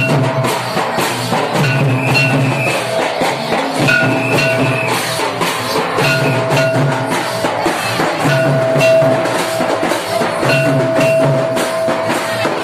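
Santali Karam dance music played live: barrel-shaped hand drums and a large kettle drum beaten in a fast, dense rhythm, with a hand cymbal clashing. A steady high note is held over the beat in long stretches.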